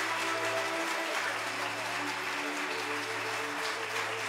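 Audience applauding, with music of held, sustained notes playing underneath.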